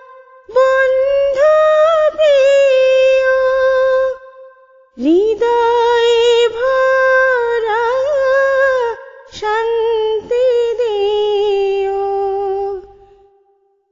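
A woman singing a Bengali hamd-naat devotional song unaccompanied. She holds long notes with small ornamented turns, and the phrases are broken by short breath pauses.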